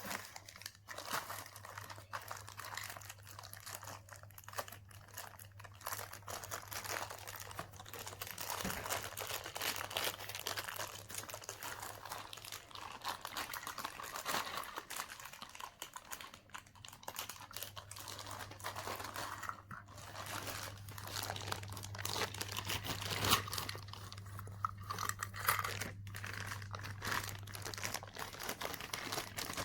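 Packaging of a Tomy Plarail toy train being handled and opened: irregular crinkling and rustling of plastic wrap and cardboard, with small clicks and crunches.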